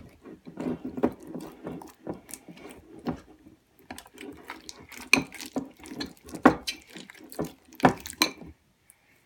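Glue-and-borax slime being stirred in a bowl: an irregular run of wet squelches and sticky clicks against the bowl, stopping shortly before the end.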